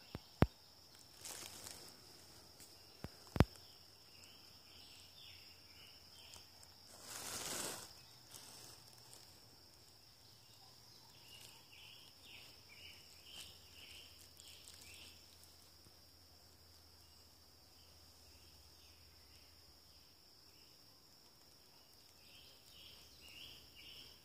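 Faint woodland insect drone, a steady high buzz, with clusters of soft chirps coming and going. Two sharp clicks sound near the start and a brief rustle about seven seconds in.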